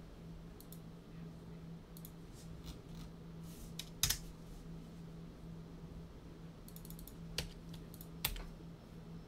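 Scattered computer keyboard taps and mouse clicks, with a few sharper clicks about four and eight seconds in, over a low steady hum.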